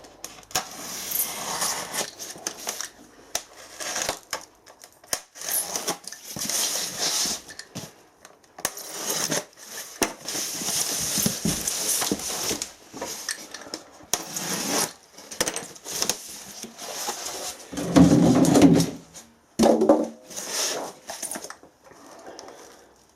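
Crinkling and rustling of packaging and hands handling parts while a diesel air heater kit is unpacked, in irregular crackly bursts with small clicks. A louder, lower scrape or bump comes about three quarters of the way through.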